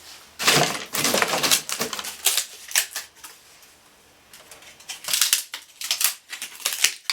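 Thin splintery pieces of wooden fruit-crate slat clattering and crackling as they are handled and laid crosswise as kindling. The sound comes in two busy stretches of quick irregular clicks: the first starts about half a second in and runs about three seconds, the second starts after a short lull and runs until near the end.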